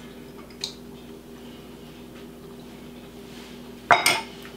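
A fork and small glass dish set down on a countertop with a sharp clatter of two quick strikes, about four seconds in. A light clink of the fork in the glass dish comes just under a second in, over a steady low hum.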